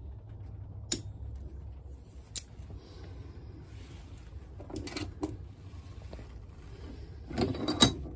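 Small handling noises at a bench vise: a few sharp clicks of a small metal tool against a brass shell head. Near the end there is a louder rustle and knock as the paper towel over it is handled. A low steady hum runs underneath.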